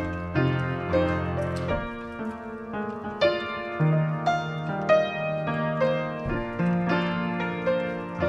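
Piano playing a slow, gentle piece: single melody notes struck about once or twice a second over held bass notes that ring out.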